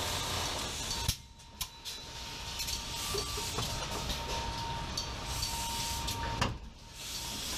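Car assembly-line machinery noise: a steady hiss and low rumble with a thin high whine. A sharp click comes about a second in and another near the end, each followed by a brief lull.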